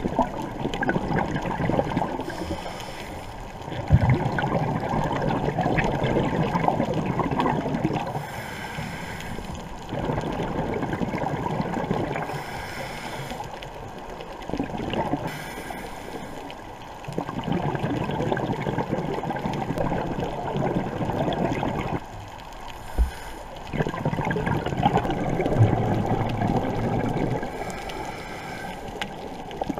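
Scuba diver breathing through a regulator underwater, heard about five times over: each breath is a short hiss on the inhale, followed by a long bubbling rumble of exhaled air that lasts several seconds.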